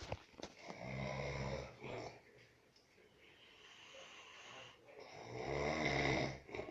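A man snoring: two snores about four seconds apart, each lasting a second or so, with quieter breathing between them.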